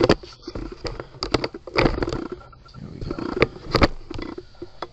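Camera and tripod handling noise: irregular sharp clicks and knocks with scraping in between, the loudest right at the start and again about two and three and a half seconds in.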